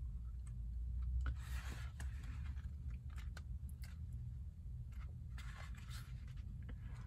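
Paper and card packaging of a CD single album rustling, crinkling and clicking as it is opened and its contents handled, with louder rustles about a second and a half in and again about five and a half seconds in. A steady low hum runs underneath in the car cabin.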